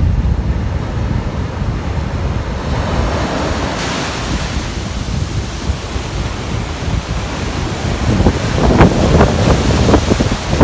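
Ocean surf breaking and washing up a sandy beach, with heavy wind rumble on the microphone. The wash swells louder about three seconds in, and sharper splashes come near the end as the water churns around someone wading in.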